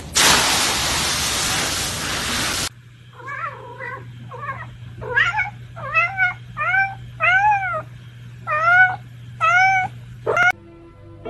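A loud, even rustling of dry leaves for about two and a half seconds. Then a cat meows about ten times, short calls that each rise and fall in pitch.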